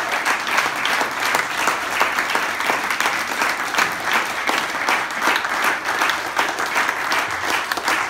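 A small audience applauding steadily, with individual hand claps standing out.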